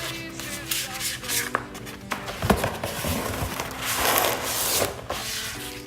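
Background music with steady held notes, over rustling and rubbing from handling sheets of vinyl decals, with a sharp knock about two and a half seconds in.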